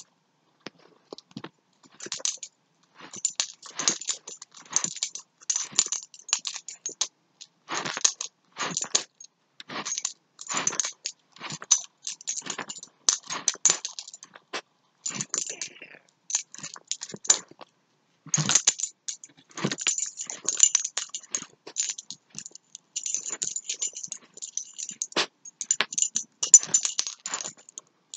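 Metal tags on a small dog's collar jingling in short, irregular bursts as she pushes her nose over a blanket in burying motions.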